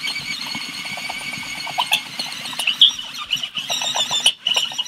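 Cordless drill driving a step bit through the steel lid of a Weber Smokey Mountain smoker, enlarging the thermometer hole to 13/16 inch. The motor whirs under a wavering high squeal from the bit cutting the metal. It eases off briefly twice near the end.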